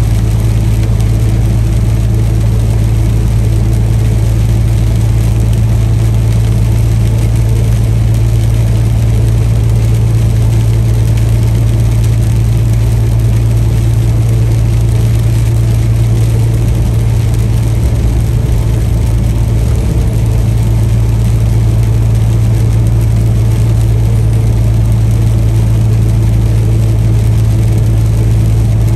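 Diesel engine of a Peterbilt 579 semi truck running steadily: a constant, loud low drone that holds one pitch.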